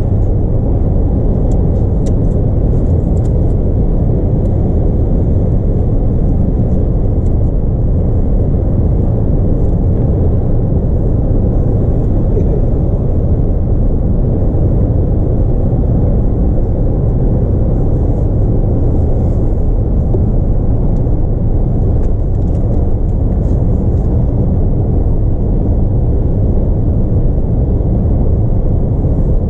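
Steady road noise inside a moving car's cabin: tyres and engine running at an even speed, a low, unchanging rumble with no rises or drops.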